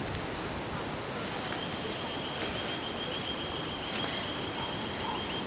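Steady wind and rain noise, with a thin, high, steady animal call that starts about a second in and carries on, and a couple of faint clicks.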